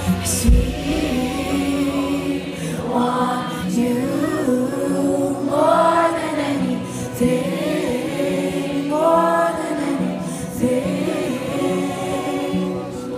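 Live worship music: voices singing a slow song together over light accompaniment, with the heavy bass dropping away about half a second in.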